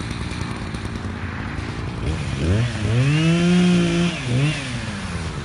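Echo two-stroke chainsaw idling, then revved up about two seconds in, held at high speed for about a second and a half, dropping back, and blipped once more briefly before settling to idle.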